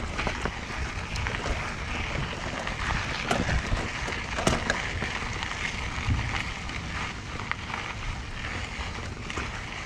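Mountain bike rolling over a dirt trail: steady tyre and ground noise with scattered rattles and knocks from the bike, and wind buffeting the action-camera microphone.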